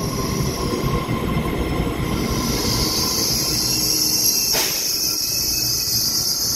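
EMU3000 electric multiple-unit train running slowly along an underground station platform with a steady rumble. About two seconds in, a high steady squeal from the running gear starts and holds; a single sharp click is heard partway through.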